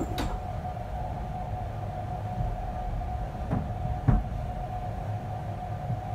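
Express passenger train running at speed, heard from inside a coach: a steady low rumble of the wheels on the track with a steady whining tone over it. A few sharp knocks come through, the loudest about four seconds in.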